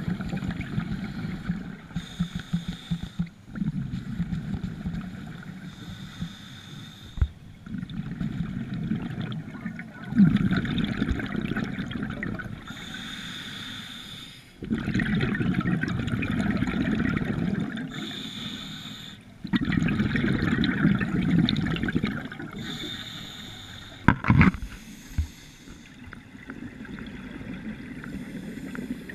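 Scuba diver breathing through a regulator: a short hissing inhale every four to six seconds, each followed by a longer burbling rush of exhaled bubbles. A sharp knock sounds once near the end.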